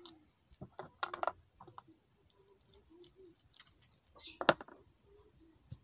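Small plastic mount parts handled and fitted together by hand: light clicks and rattles, a cluster about a second in and a sharper click about four and a half seconds in.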